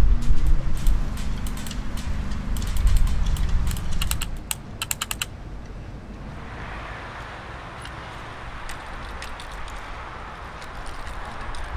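Arduino-driven solenoid tapping on a hollow steel sculpture: irregular clicks over a low rumble, quickening into rapid runs of taps about four to five seconds in. After that the taps come only now and then over a steady hiss.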